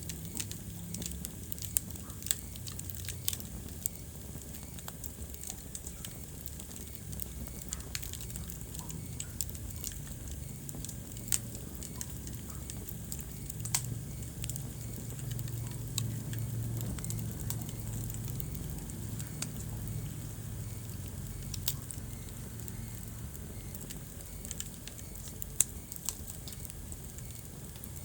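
Wood fire burning in a fireplace: irregular sharp crackles and pops over a steady low rumble of the flames, with one louder pop near the end.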